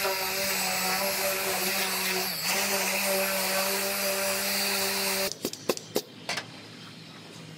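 Small die grinder with an abrasive disc running at high speed, dipping briefly as it is pressed into the sheet metal while it takes the coating off for welding. It stops suddenly about five seconds in, and a few sharp clicks follow.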